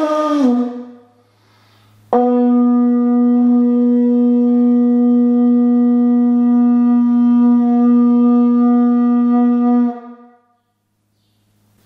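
Conch shell horn blown in one long, very steady note of about eight seconds. It starts abruptly about two seconds in and stops near the end. At the very start, an earlier wavering note drops in pitch and fades out.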